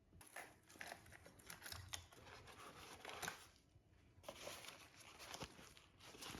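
Packaging being handled and opened up close: soft crinkling, tearing and scratchy rustling with many small clicks, pausing briefly a little past halfway.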